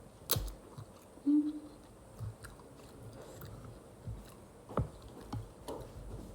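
A person chewing and biting chicken close to the microphone, with sharp mouth clicks just after the start and again just before the five-second mark, and a brief low hum about a second in.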